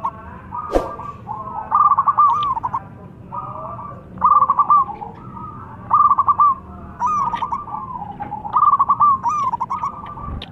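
Zebra dove (perkutut) singing its rapid, stuttering cooing song: short phrases of quick repeated coos, about eight of them with brief pauses between. A single sharp click sounds about a second in.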